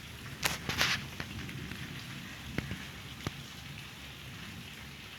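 Steady rain falling, with a few louder sharp taps of drops near the microphone, the loudest cluster within the first second.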